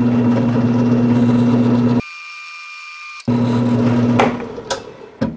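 Benchtop mill-drill running with a steady electric-motor hum while a center drill cuts into steel square tube, at a slow spindle speed. The hum breaks off for about a second after two seconds, returns, then dies away near the end with a few clicks.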